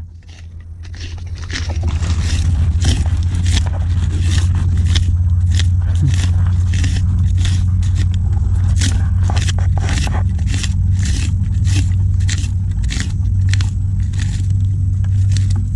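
A metal sadat, the red-handled probing rod used to dig for mangrove clams, being worked into wet mud and tangled mangrove roots. It gives sharp scraping, crunching clicks about two or three times a second over a steady low hum.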